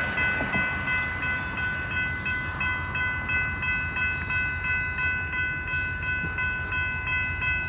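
Railroad grade-crossing warning bells ringing steadily over the low rumble of the approaching train.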